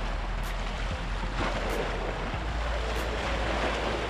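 Small waves washing against the rocks of the shoreline, swelling and easing, with wind rumbling on the microphone.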